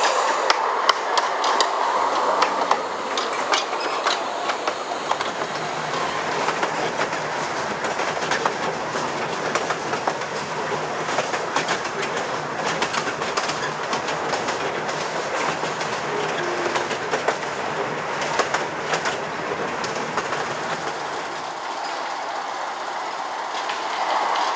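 Miniature steam train, a 2-4-2T tank locomotive hauling its carriages, running along narrow-gauge track with a steady patter of wheel clicks over the rail joints.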